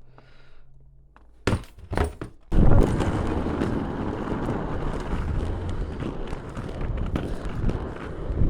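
Two knocks, then aggressive inline skates rolling on rough pavement from about two and a half seconds in: a steady gritty rumble of the wheels with small clicks.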